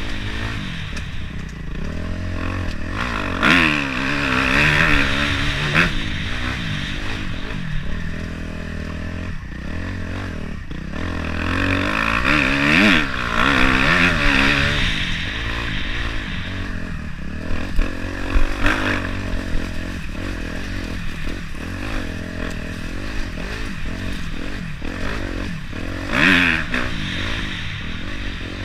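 Dirt bike engine being ridden hard, the revs rising and falling as the rider accelerates and backs off through the turns, with rattling and scraping as the bike goes over rough ground. The engine pulls up to high revs several times.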